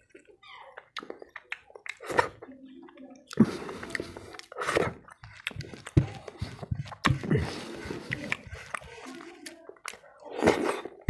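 Close-miked wet squelching and clicking of fingers mixing rice with boiled masoor dal on a paper plate, with mouth sounds of chewing and lip smacks, in irregular bursts, the fullest about four and a half seconds in and near the end.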